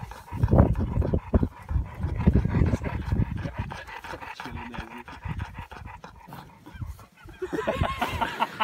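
Bull mastiff panting heavily with its tongue out, in quick repeated breaths.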